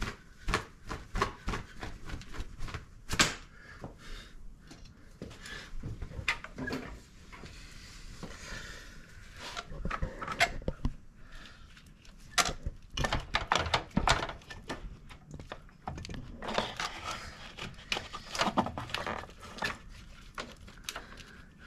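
Irregular clicks, knocks and clinks of coolant hoses and a powder-coated coolant pipe being handled and fitted in a car's engine bay, with about two seconds of steady rustling near the middle.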